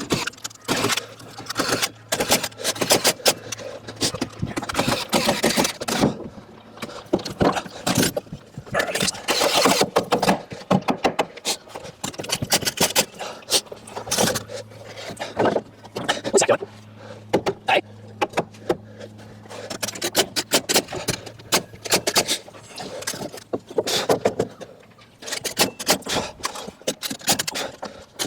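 Wall-framing carpentry work: many sharp knocks and clacks of timber and tools, over a steady low hum that stops near the end.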